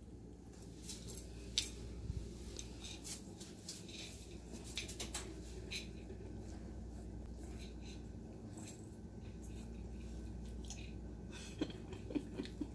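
A puppy mouthing, dropping and licking a raw chicken foot on a tile floor: scattered light clicks and taps, with two sharper clicks about a second in.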